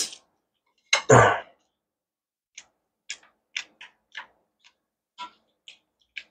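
Wooden spoon scooping fried rice in a stainless-steel bowl. Two louder knocks come with a brief heavier rustle about a second in, then a string of short, light clicks and scrapes, about two a second.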